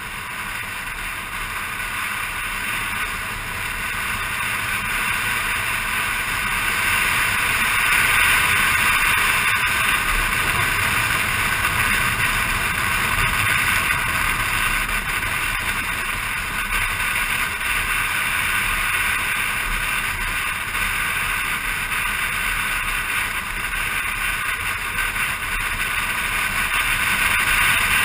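Motor scooter on the move, a steady rush of engine and road noise that grows louder over the first several seconds.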